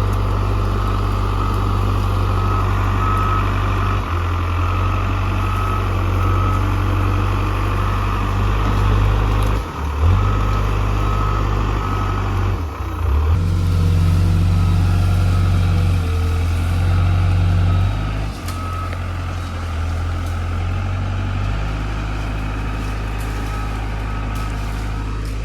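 A heavy construction machine's engine running and working, its load and pitch shifting every few seconds, with a backup alarm beeping at a steady pace.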